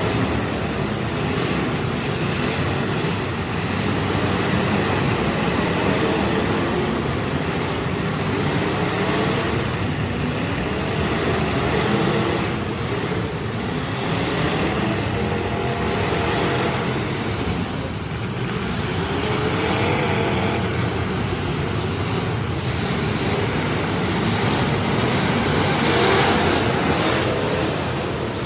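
Several demolition derby cars' engines running hard and revving, their pitches rising and falling over one another.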